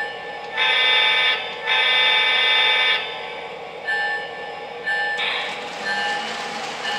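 Lionel LionChief Union Pacific GP38 model diesel's onboard sound system blowing its horn as it departs: two blasts, the second longer, then a fainter third from about five seconds in, over the steady sound of the diesel engine.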